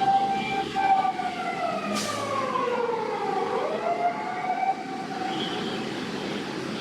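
Fire engine siren wailing: a steady tone that sinks in pitch about halfway through, climbs back, then fades. A sharp click sounds about two seconds in.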